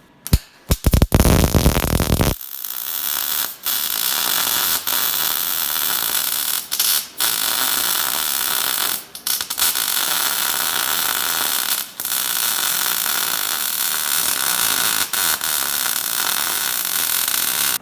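Electric arc welding on a steel bumper: a few short stuttering bursts as the arc strikes, then a steady hiss broken several times by brief gaps as the bead is laid.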